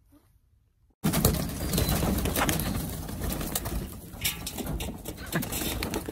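A flock of backyard chickens clucking and flapping their wings as they scramble over dirt, starting suddenly about a second in.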